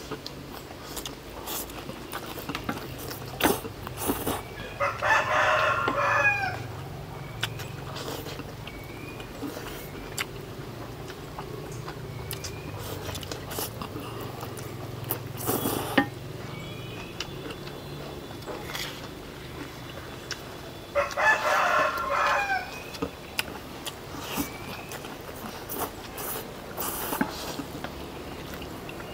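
A rooster crows twice, the two crows some fifteen seconds apart and each under two seconds long. Between them come scattered sharp clicks and knocks from people eating.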